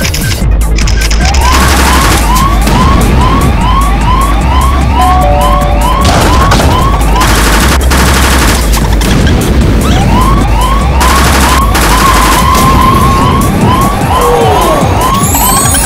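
Electronic background music over a heavy bass, with a siren-like yelp of quick rising sweeps, about three a second, that pauses in the middle while short bursts of hiss cut in. It ends on one falling glide.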